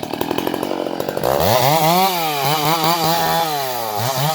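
Chainsaw engine pulsing at low speed, then revved hard about a second in and kept at high speed, its pitch rising and falling as it cuts. It dips briefly and climbs again near the end.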